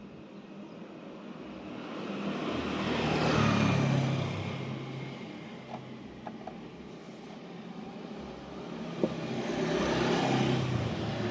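Two motor vehicles passing by one after the other, each engine sound swelling up and then fading away, with a few light clicks in between.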